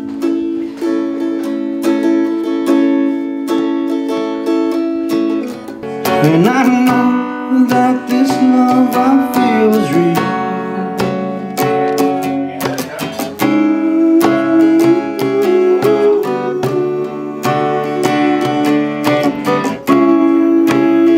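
Live acoustic guitar strummed and picked in a steady rhythm, with a small hand drum. A voice sings a wavering line for a few seconds about six seconds in.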